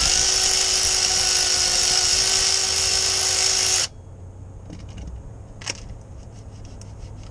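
Handheld power tool running at one steady pitch for about four seconds, stepping slightly higher about halfway through, then cutting off. A few light metallic clicks follow.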